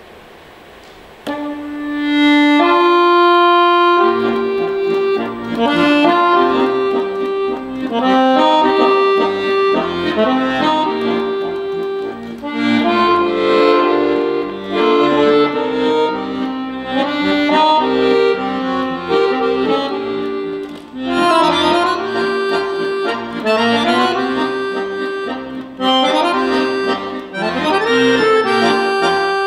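Piano accordion played solo: after a short hush, a single held note sounds about a second in, then a chord, and the piece goes on in quick melodic runs over bass notes.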